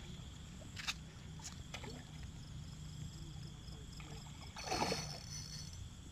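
Steady night insect chirring over a low background rumble, with one short splash on the water about five seconds in.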